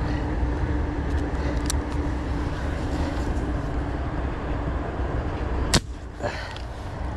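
Steady low rumble with a faint hum, then one sharp crack a little after halfway through as a homemade fishing gun is fired at the fish, with a smaller click just after.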